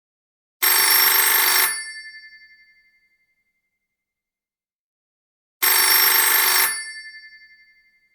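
Telephone bell ringing: two rings about five seconds apart, each a rapid ringing burst of about a second that fades away over the next second or so.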